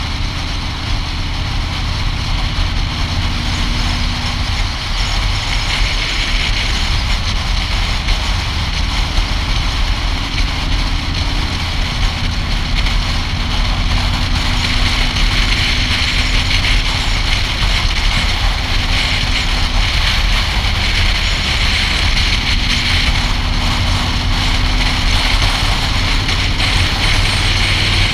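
Motorcycle engine running steadily at cruising speed, with wind and road rush over the camera's microphone.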